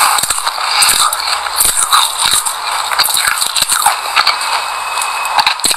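Dry white sesame seeds being chewed close to the microphone: a dense crackling crunch, dotted with many small clicks.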